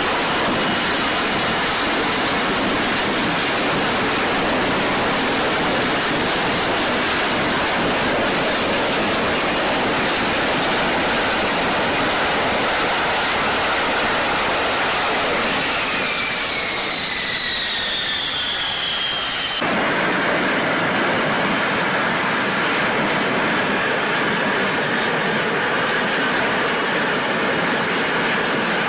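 F-35B jet engine running with a steady, loud rush of jet noise. A high whine falls in pitch between about 16 and 19 seconds, and the sound changes abruptly soon after, as if cut to another shot.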